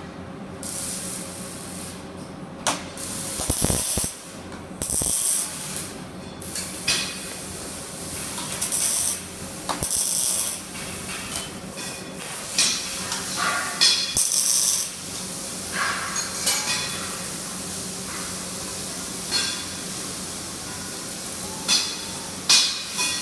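Metal workshop handling noise: irregular clanks, ratcheting clicks and short hissing bursts as a part is set and clamped in a welding fixture, over a steady machine hum.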